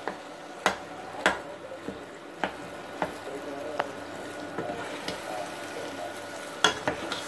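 Spoon stirring raw chicken mince into a spiced tadka with green peas in a stainless steel pot. A steady low sizzle runs under it, and the spoon clicks against the pot about six times, the loudest near the end.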